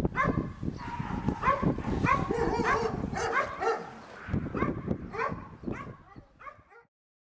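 English setters barking and yipping close up in many short, repeated calls, fading out and stopping near the end.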